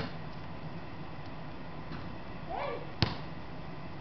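A single sharp thud of a basketball striking, about three seconds in, just after a brief short vocal sound, over a steady background hiss.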